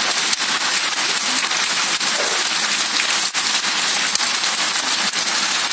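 Heavy downpour: a dense, steady hiss of rain with many small ticks of drops striking paving and leaves.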